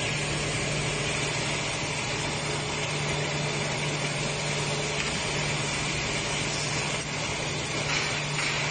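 Coil nail making machine running: a steady mechanical din with a constant low hum and a hissing, rattling top, with no breaks or changes.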